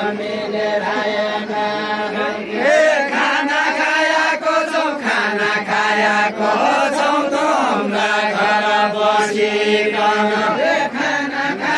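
Voices singing a Deuda, the far-western Nepali folk song, in long held, wavering chant-like lines.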